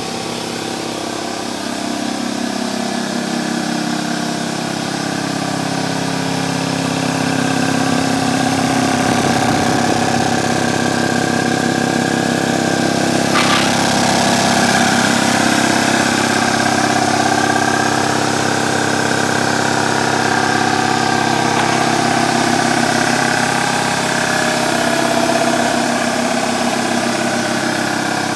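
Ingersoll Rand vertical-tank electric air compressor running steadily, its motor and piston pump charging the tank. It grows a little louder over the first several seconds.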